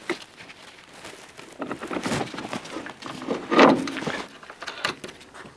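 Scattered light knocks and scrapes as a shock absorber with its coil spring is worked into place in the front suspension, with one louder, longer sound about three and a half seconds in.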